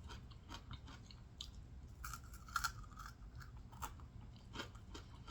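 Faint chewing and biting of fried catfish tail: irregular small crunches and mouth clicks, a few in quick succession.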